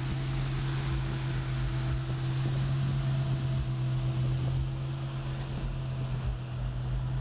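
A steady low mechanical hum, like a motor or engine running evenly, with a constant low drone over a background hiss.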